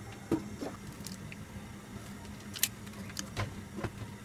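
A few light, irregular clicks and knocks from a wooden spatula in an aluminium cooking pot, over a faint steady hum.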